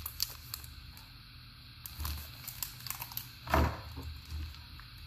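Quiet handling of a card collection box and foil booster packs: a few light clicks and rustles, with one dull thump about three and a half seconds in.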